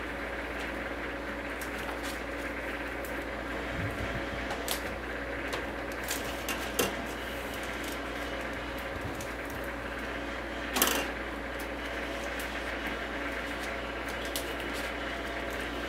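DVD cases being overwrapped by hand in cellophane film on a DeltaWrap 200 overwrapping machine: scattered clicks of the plastic cases and crinkles of the film over a steady hum, with the loudest, a short crackle, about eleven seconds in.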